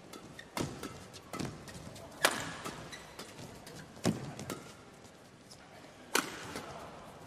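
Badminton rackets striking the shuttlecock in a fast doubles rally: a series of sharp cracks about a second or two apart.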